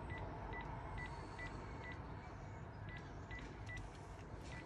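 A string of short, faint electronic beeps from a mobile phone as a video call is set up, about two a second, with a brief break a couple of seconds in.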